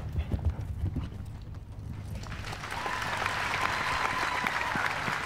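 A horse's hoofbeats as it canters on turf. About two seconds in, a large crowd breaks into applause that swells and holds, greeting a clear show-jumping round with no jumping penalties.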